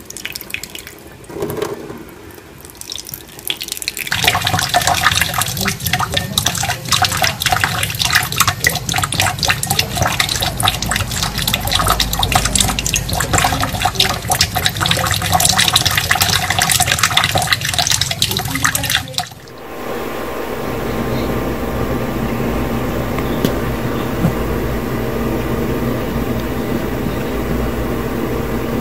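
Water running from a kitchen faucet and splashing into a stainless steel sink and over a cat under the stream, loud and crackling from about four seconds in. After about nineteen seconds it gives way to a steadier, even sound with a low hum.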